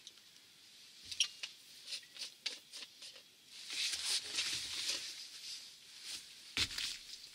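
Rustling of a padded winter jacket with scattered light clicks, as an angler moves and reaches for ice-fishing gear on the tent floor. One sharp knock comes near the end, as the hand reaches the gear.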